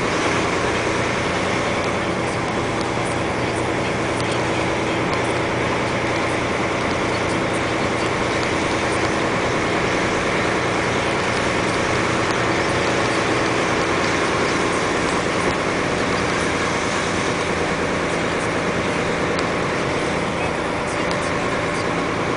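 Dump truck engine running steadily while driving along a road, with tyre and road noise, heard from on board.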